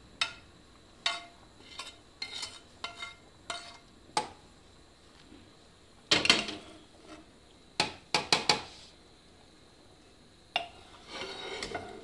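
A utensil tapping and scraping against a nonstick frying pan as cooked peppers are scraped out, a string of sharp separate taps, then louder clattering about six and eight seconds in as the pan is set down on the metal grate of a gas stove.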